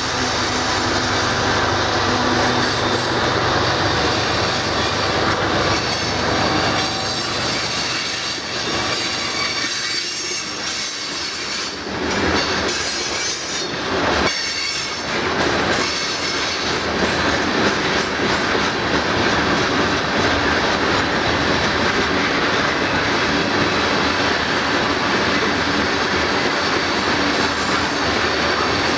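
Freight train of covered hopper cars rolling past close by: a steady rumble of steel wheels on rail with a thin, continuous flange squeal. In the first few seconds the low diesel drone of a passing distributed-power locomotive fades out.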